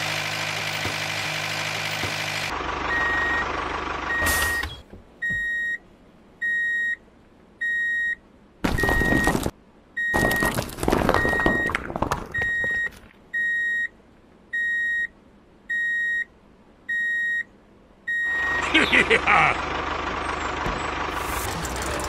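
Vehicle reversing alarm beeping steadily, about once a second, with two loud bursts of noise partway through. A steady motor-like drone comes before the beeping and returns near the end.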